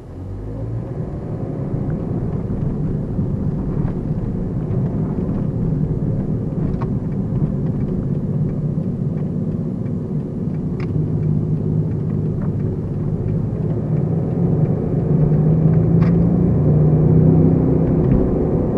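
Toyota Ractis driving, with engine and road noise heard from inside the car. The noise grows louder over the first couple of seconds as the car gets under way, then runs steady, and the engine note rises again in the second half as it accelerates.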